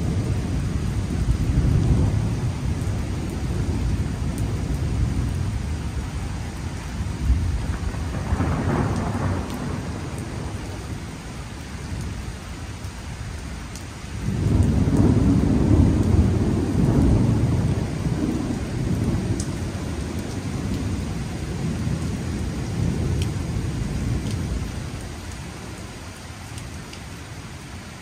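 Rain falling during a thunderstorm, under a deep, uneven rumble. The rumble swells suddenly about halfway through and fades near the end.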